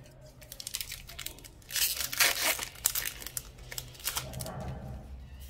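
A foil wrapper of a Magic: The Gathering Kamigawa: Neon Dynasty set booster pack being torn open and crinkled, crackling loudest about two seconds in, then a softer rustle.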